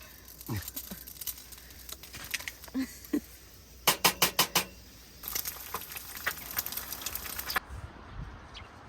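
Light clicks and clatter of food and utensils being handled at a meal, with a quick run of about six sharp taps about four seconds in, then a few seconds of rustling.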